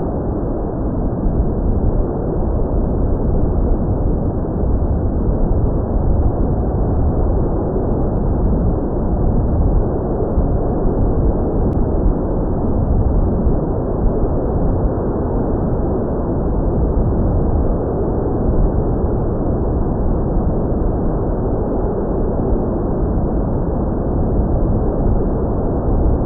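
Steady rushing wind noise on the microphone, a dense low rumble with no distinct motor tone.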